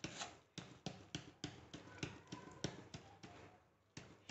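Light, evenly spaced taps, about three a second, as powdered jaggery is tapped out of a packet into a steel pan of gravy; the taps stop for about a second near the end.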